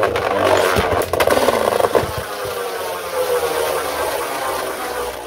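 Two Beyblade Burst spinning tops, Brave Valkyrie and Tempest Dragon, whirring and clashing in a plastic Beyblade stadium. They hit each other several times in the first two seconds, then settle into a steady whir whose pitch falls slowly as they lose spin.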